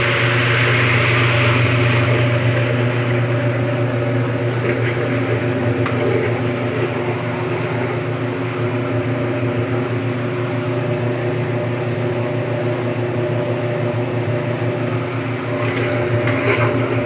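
Brastemp Automático Luxo Plus washing machine running with a steady motor hum. A hiss over the hum fades out about two seconds in, and a brief noisier stretch comes near the end.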